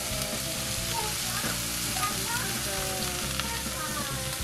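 Two marbled beef steaks sizzling steadily in a hot stainless steel frying pan, with soft background music underneath.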